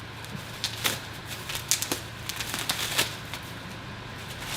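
Protective packaging on the bike crackling as it is handled: irregular sharp crackles and clicks for about two and a half seconds, over a steady low hum.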